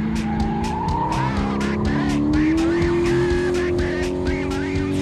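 Nissan Skyline drift car with a supercharged LS2 V8 sliding sideways, its engine running hard and its tyres squealing, mixed with background music that has a quick steady beat.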